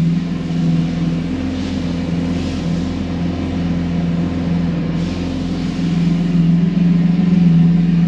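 Lamborghini Aventador LP700-4's V12 engine running at a steady idle, with a constant low drone and no revving.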